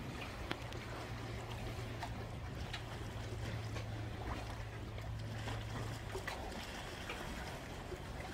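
Low steady hum of a boat engine that cuts out about six seconds in, over faint lapping water and a few light clicks.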